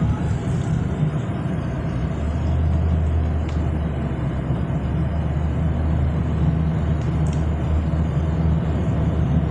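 Car cabin noise at highway speed: a steady drone of engine and tyres on the road, with a deeper low rumble swelling about two seconds in.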